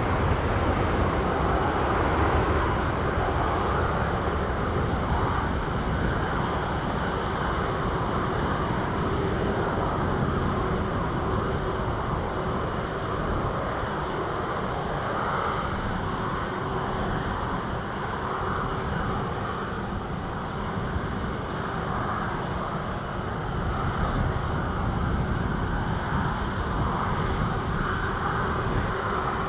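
Jet engines of a departing Singapore Airlines Boeing 777, a steady rushing noise that slowly fades.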